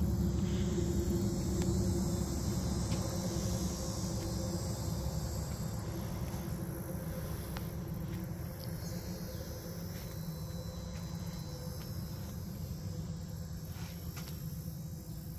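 Insects chirring in a steady high haze over a low rumble that slowly fades.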